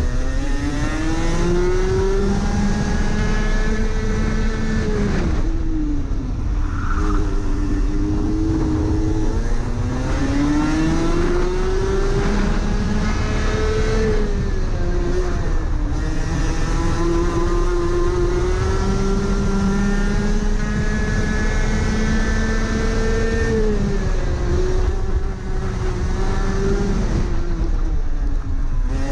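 Rotax Max Senior single-cylinder 125 cc two-stroke kart engine at full racing effort. Its pitch climbs on the straights and drops away under braking several times. There is a long high stretch past the middle, with a drop near the end before it climbs again.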